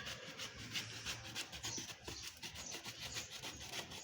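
Paintbrush rubbed back and forth over a cast concrete tile, a rapid brushing of short strokes several times a second.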